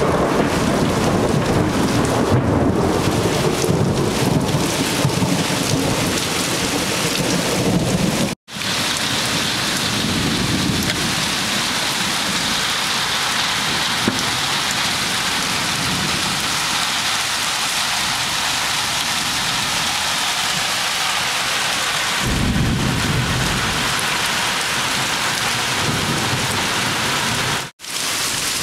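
Heavy rain pouring down steadily in a thunderstorm, with thunder rumbling through the first eight seconds and another roll of thunder about 22 seconds in. The sound cuts out to silence for a moment twice, at about 8 seconds and near the end.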